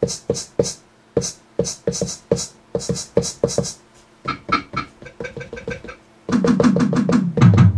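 Maschine Mikro MK2 drum samples: a shaker sample struck about three times a second. About four seconds in it gives way to other pitched percussion hits, and about six seconds in a full electronic beat with a deep synth bass starts.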